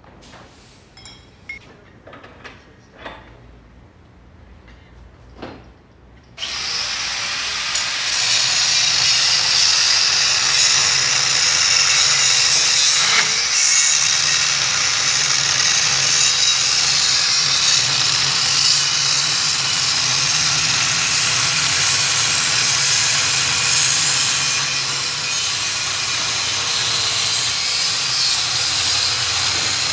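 A few light clicks and knocks, then about six seconds in a power tool starts and runs steadily on a shock absorber's metal parts, a high grinding hiss over a low motor hum.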